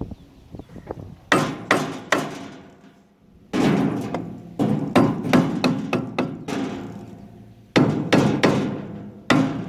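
Hammer tapping a part up into place on the crimper drive shaft of a New Holland 495 haybine. A few light taps come first, then runs of quick blows with short pauses between them.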